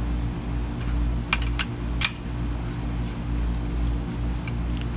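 Wrench tightening a car's lug nut, giving three sharp metallic clicks in quick succession about a second and a half in and a faint one near the end, over a steady low hum.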